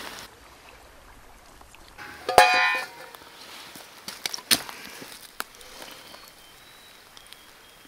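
Metal camp cookpot and its lid clinking as the pot is handled with multitool pliers to strain pasta: one sharp clink that rings briefly about two and a half seconds in, then a few lighter clicks.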